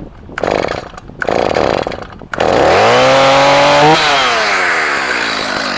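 Stihl MS290 two-stroke chainsaw being pull-started: two bursts of cranking, then the engine catches about two and a half seconds in. It revs up, holds briefly, and the revs fall back toward idle.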